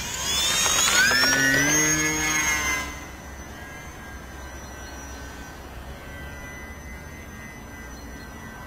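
Small electric motor and propeller of a foam RC model Cessna 150 whining up to takeoff power, rising in pitch over the first two seconds. After about three seconds it drops to a fainter, steady high whine as the plane flies away.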